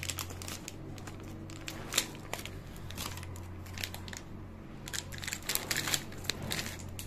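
Plastic wrapper of a processed cheese slice crinkling and crackling as it is peeled open, in irregular rustles and light clicks over a steady low hum.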